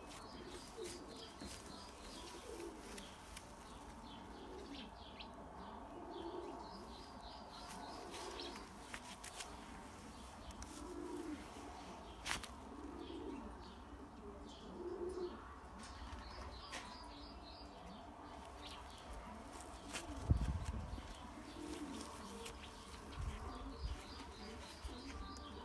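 Pigeons cooing now and then, short low coos every few seconds, with high chirping calls behind them. A dull low thump about twenty seconds in.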